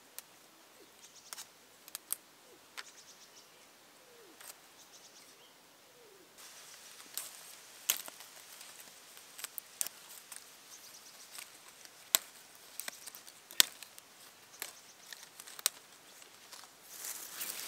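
Leaves and small stems of a young citrus bush snapping and rustling as they are picked off by hand: scattered soft clicks and snaps that come more often and a little louder from about six seconds in, with a rising rustle near the end.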